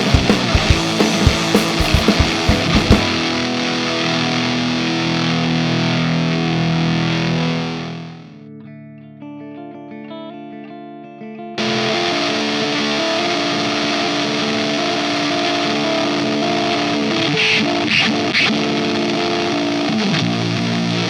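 Electric guitar through a ZVex Fuzz Factory 7 fuzz pedal and a Marshall JCM 900 tube amp, playing heavily fuzzed chords, with drum hits during the first few seconds. A long held chord fades about eight seconds in to quieter sustained notes, and a loud fuzz chord comes back suddenly about three and a half seconds later and rings on.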